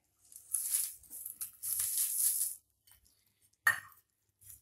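Fine sev and crushed papdi poured from a steel bowl onto puffed rice in a glass bowl: two dry, crisp rustling pours, then a single sharp knock near the end.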